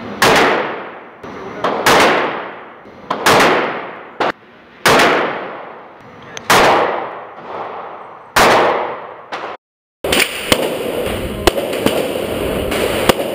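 Six handgun shots fired one at a time, about every one and a half to two seconds, each with a fading echo. Near the end the sound cuts abruptly to a steady background noise with a few faint sharp cracks.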